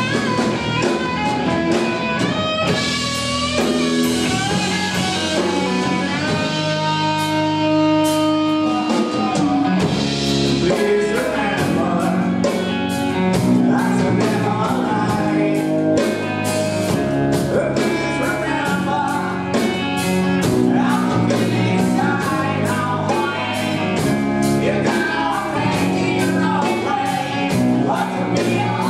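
Rock band playing live: distorted electric guitar, bass and drum kit, with a man singing into a handheld microphone. Long held guitar notes give way to a steady driving drum beat about a third of the way in.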